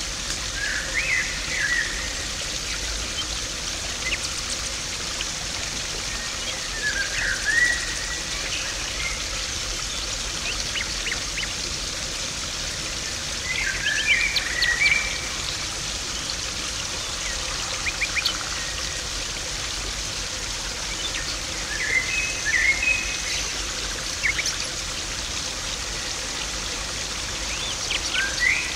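Garden pond water trickling and splashing steadily. Over it, a bird sings a short phrase about every six to seven seconds, five times in all.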